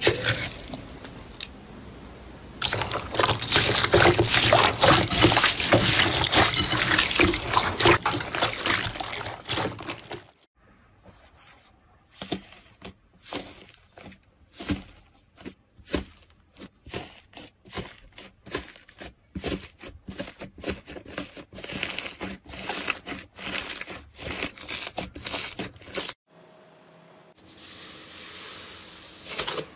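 Slime squished by hand: a dense, loud crackling as a finger presses green bead-filled slime, then a long run of sharp, separate crunchy clicks as a hand presses crunchy foam-bead slime, and a quieter steady hiss near the end.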